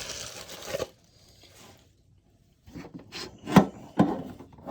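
Hands opening a collector's chest tin and handling its contents: a brief rubbing scrape, a pause, then several light knocks and taps, the sharpest about three and a half seconds in.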